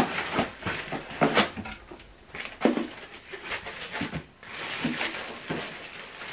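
A cardboard box and a foam packing insert being handled and set down: irregular rustling and scraping with several light knocks.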